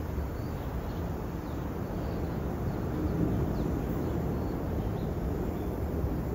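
R62A subway train approaching slowly on elevated track, a steady low rumble of wheels on the rails and steel structure. A few faint short high chirps sound above it.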